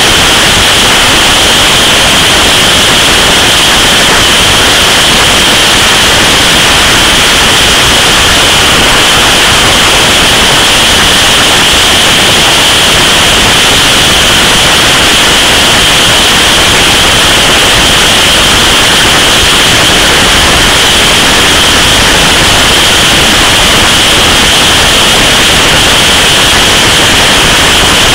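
Loud, steady wind rush on the camera's microphone from riding at motorway speed, an unbroken hiss that buries the motorcycle's engine.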